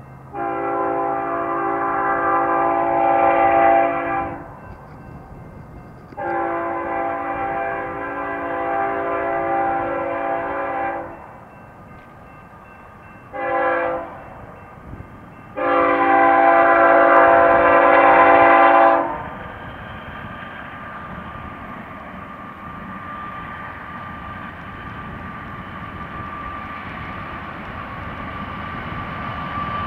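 BNSF diesel freight locomotive's multi-tone air horn sounding the grade-crossing signal as the train approaches: two long blasts, a short one and a final long one. After that the rumble of the approaching double-stack train grows steadily louder.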